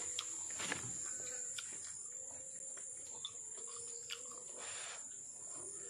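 Steady high-pitched drone of insects, with a few faint clicks and taps scattered through it.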